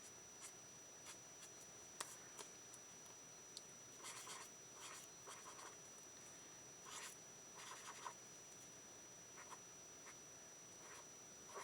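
Faint scratching of a pen drawing on paper, in a few short runs of strokes about four seconds in and again around seven to eight seconds, with a few light taps between.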